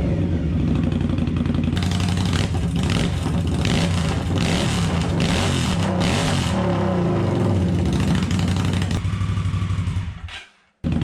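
Indian Scout's V-twin engine running through aftermarket mufflers, its pitch rising and falling repeatedly as it is revved and shifted. The sound cuts off abruptly shortly before the end.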